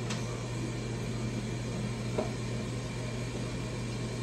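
Steady low hum of a running kitchen appliance fan, with one faint click about two seconds in.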